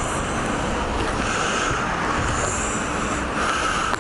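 Steady wind and road noise from a motorcycle on the move, with wind rushing over the microphone.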